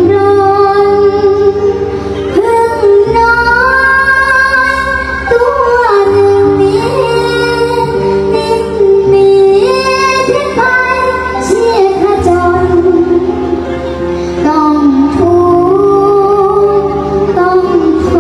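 Background music: a female voice singing a melody with long held notes that bend in pitch, over a bass and instrumental accompaniment.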